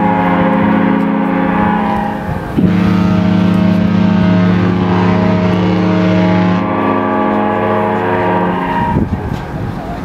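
The Norwegian Encore's ship horn sounding a long, loud blast of several tones at once. The chord shifts twice and wavers and fades near the end.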